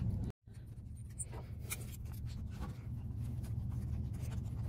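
Faint scratching and small ticks of a hand hex driver turning a small screw into an RC truck's aluminium axle and servo mount, over a steady low hum. The sound drops out completely for a moment just after the start.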